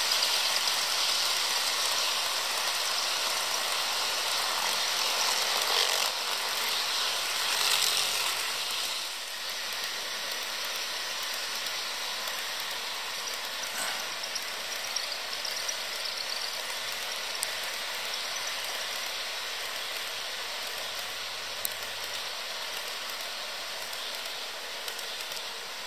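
HO scale model train rolling past on its track: a steady whir of the two Alco PA locomotive models' motors and the wheels on the rails, louder for the first nine seconds or so as the locomotives pass close by, then a lower steady rolling with a few small clicks as the passenger cars go by.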